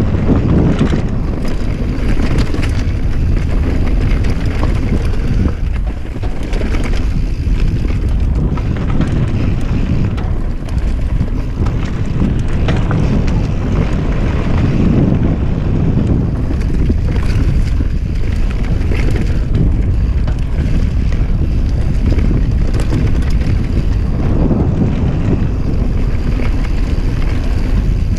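Wind buffeting an action camera's microphone on a fast mountain bike descent, with the tyres rolling over a dirt trail and the bike clattering over bumps throughout.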